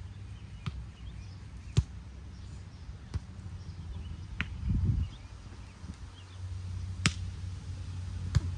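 Volleyballs being struck, sharp single slaps about six times at irregular spacing, over a steady low rumble with a brief louder low burst about halfway.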